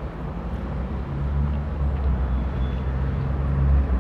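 Street traffic with a heavy vehicle's engine running low and steady, swelling about a second in.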